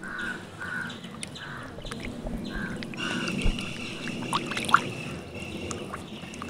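Water splashing and swishing as a hand moves through shallow river water, with crows cawing repeatedly in the background.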